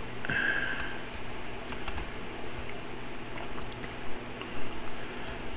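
Scattered light clicking at a computer, about half a dozen separate clicks in the second half, over a faint steady room background, with a short faint tone near the start.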